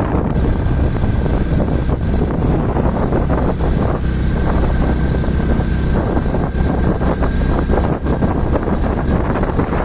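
Motorcycle engine running on the move, with wind rushing over the microphone; a thin steady whine sits over it and stops about eight seconds in.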